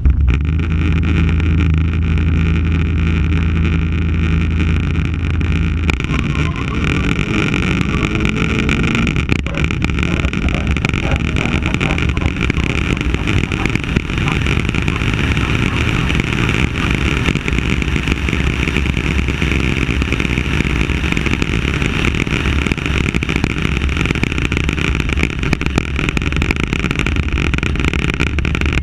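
Opel Ascona's engine idling steadily, then the car pulls away about six seconds in with the engine note rising as it accelerates. After that, steady engine and wind noise as the car runs along at speed, heard through a camera mounted on the outside of the car.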